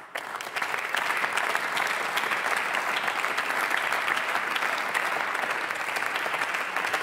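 Members of parliament applauding: many people clapping together in a large chamber, steady and dense.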